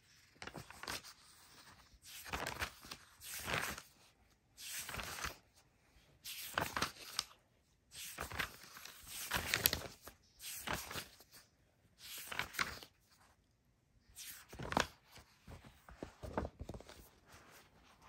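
Glossy magazine pages being turned and brushed by hand: a dozen or so separate paper rustles and swishes, each under a second, with short pauses between them.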